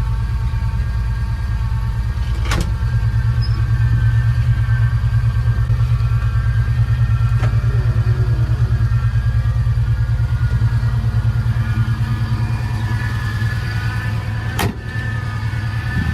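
AMC 360 V8 of a 1986 Jeep Grand Wagoneer running with a steady whine from the power steering pump, the sign of low power steering fluid. Two sharp clicks, about two and a half seconds in and near the end.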